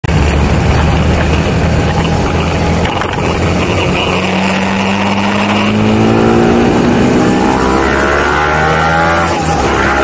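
BMW G310R's single-cylinder engine running as the motorcycle is ridden, with its pitch climbing steadily through the second half as it speeds up.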